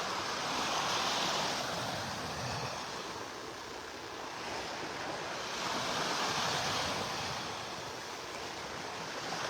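Surf washing onto a sandy beach: a steady hiss of water that swells with a wave about a second in and again about six seconds in.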